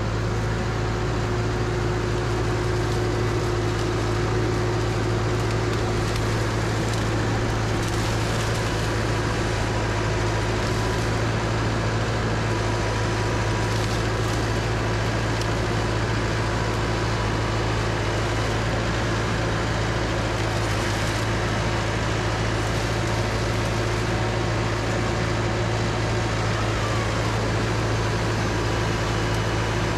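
Tractor engine running at a steady, unchanging speed, heard close up from the operator's seat.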